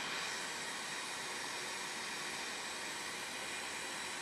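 JBC hot air rework station blowing a steady hiss of hot air from its nozzle onto a small SMD component to melt its solder for desoldering.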